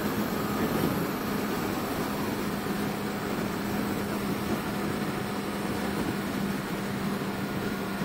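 Honda CB650F's inline-four engine running at a steady cruise, its note holding one even pitch, under a steady rush of wind and road noise.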